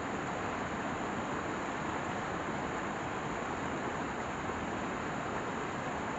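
Steady rushing of a fast mountain stream tumbling over rocks, a constant even noise.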